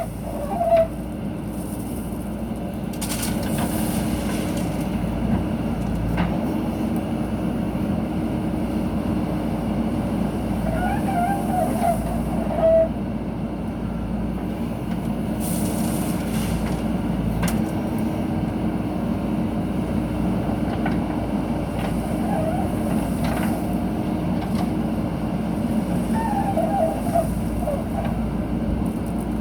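JCB backhoe loader's diesel engine running steadily under work, with a few short high-pitched chirps about eleven seconds in and again near the end.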